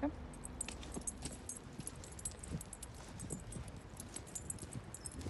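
Metal rings and clips on a dog's harness and lead jingling in quick, light clinks as the dog walks on the lead, with footsteps on paving stones.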